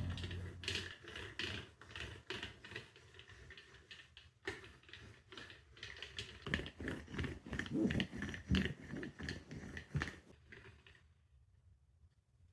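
Irregular, rapid clicking and knocking, like small hard objects being handled, busiest in the middle and stopping about eleven seconds in.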